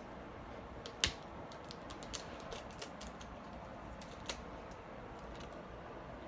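Faint, scattered clicks and crackles of a plastic L.O.L. Surprise LiLs toy package being handled and opened, with the loudest click about a second in and a run of smaller ones after.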